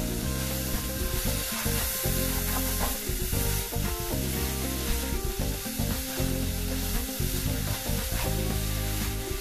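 Mixed vegetables, grated courgette, broccoli and peppers, sizzling in a hot wok as they are stirred and turned with a spatula, with background music underneath.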